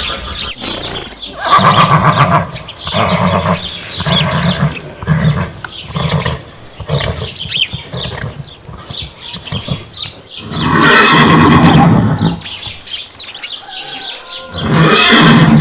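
Horses neighing. A whinny comes early, then a run of short pulsing calls at about two a second. A long, loud neigh follows about eleven seconds in, and another loud neigh comes near the end.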